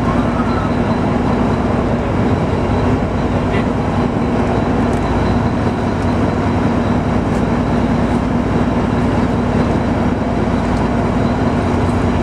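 Fishing boat's engine running steadily, a constant low drone.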